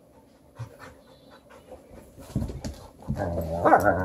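A dog panting, then a louder, drawn-out pitched vocal sound in the last second or so.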